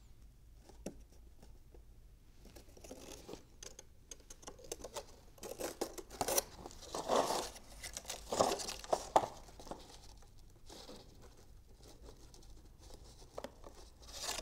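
Paper strips rustling and crinkling as they are handled and pressed together by hand. Quiet at first, with the rustling heaviest from about three to nine seconds in, then softer.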